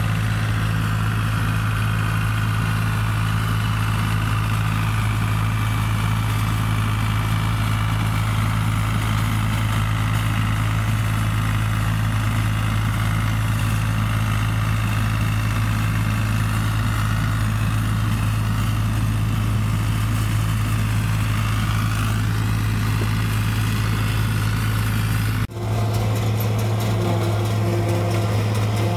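Tractor engine running steadily at an even speed. About three-quarters of the way through the sound cuts abruptly to another tractor engine running steadily with a different tone.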